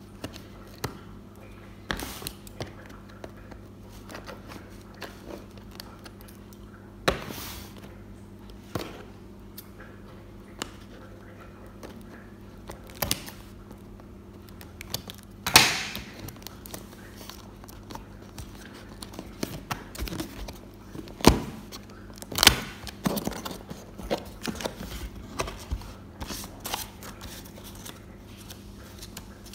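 Scissors cutting the seal stickers of a cardboard box, then the cardboard flaps and paper leaflets inside being handled: scattered clicks and rustles, with a few louder, longer scraping sounds.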